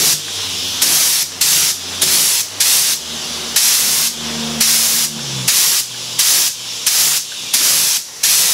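Spray gun spraying a dye-stain toner in short hissing bursts, about a dozen, with the air pressure and spray nozzle turned down. A low hum runs underneath and stops about five and a half seconds in.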